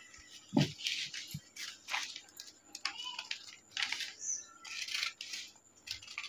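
Scissors snipping through several layers of folded newspaper, a series of short irregular cuts with paper rustling between them.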